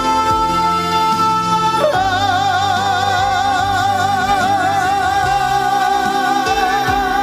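Trot ballad with a backing track playing. A singer holds one long note with wide vibrato from about two seconds in.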